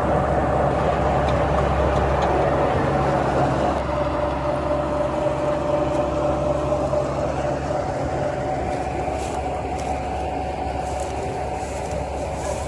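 Heavy farm diesel engines, tractors and combine harvesters working to pull a stuck combine, running steadily with a deep rumble and a level droning note. The note drops slightly and grows a little quieter in the last few seconds.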